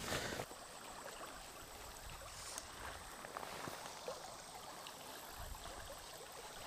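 Shallow creek water running over a gravel riffle: a faint, steady rush. A brief rustle comes at the very start.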